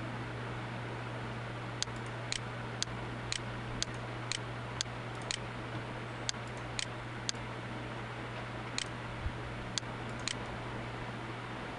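Computer mouse button clicking: about fourteen short, sharp clicks roughly half a second apart, over a steady low hum and hiss.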